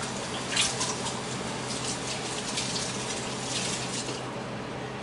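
Water running steadily with a few brief louder surges; it stops about four seconds in.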